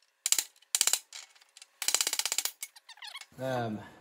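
Ball-peen hammer striking a punch set against the old bearing race inside an Allis-Chalmers D17 front wheel hub, in quick runs of metallic blows: two short bursts, then a longer rapid run about two seconds in. The blows are driving the stuck race out of the hub.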